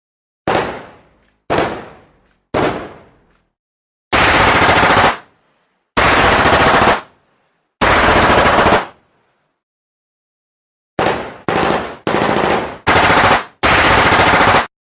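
Gunfire: three single shots about a second apart, each with a short echoing tail, then three automatic bursts of about a second each that stop abruptly. After a pause of about two seconds comes a quick run of short automatic bursts leading into longer ones.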